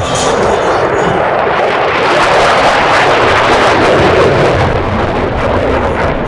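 Jet noise from the Thunderbirds' F-16 fighters flying past, a loud, steady rushing sound that builds about two seconds in and eases slightly near the end.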